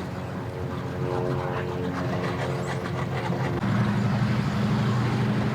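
An engine running steadily; about three and a half seconds in, a deeper, louder engine note takes over.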